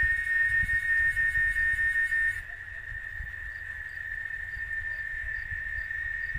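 Cicada singing: one continuous high, buzzing whine that holds a steady pitch, dropping somewhat in level about two and a half seconds in.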